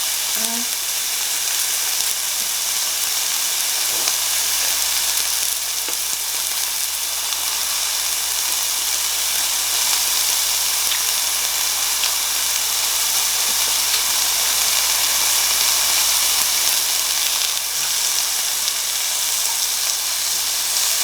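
Raw sliced meat sizzling steadily on a hot grill, an even frying hiss with a couple of faint clicks.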